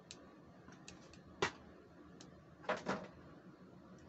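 Plastic fashion doll and plastic toy accessories handled on a tabletop: a few light clicks, one sharp knock about a second and a half in, and a quick double knock near three seconds.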